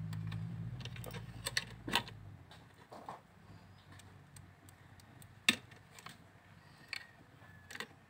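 Scattered sharp clicks and light taps of a soldering iron and fingers against a drone remote control's plastic shell and circuit board, the loudest about five and a half seconds in. A low hum underneath stops about two and a half seconds in.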